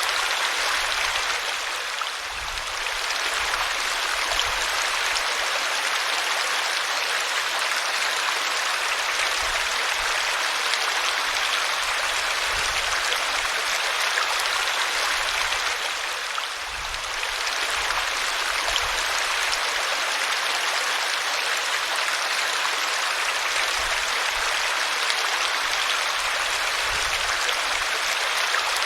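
Small waterfall splashing and rushing steadily, an even wash of falling water that softens briefly twice.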